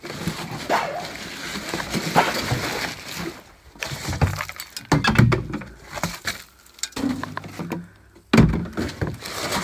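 Old junk being rummaged through and shifted by hand: objects knocking, scraping and clattering against one another, with a heavy thump near the end.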